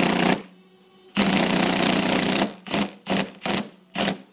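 Panasonic cordless impact driver on its lowest setting, driving a bolt. A short burst of hammering, then a longer run of over a second, then four quick blips as the bolt is snugged down.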